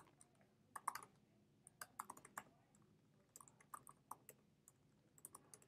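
Typing on a computer keyboard: quiet, sharp key clicks coming in uneven little runs.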